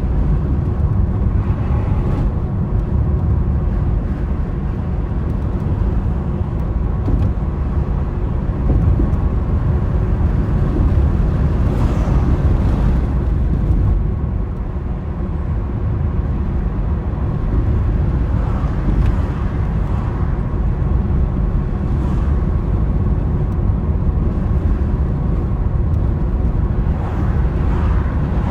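Car driving in high winds: a steady low rumble of engine, road and wind noise, with a few brief swishing swells along the way.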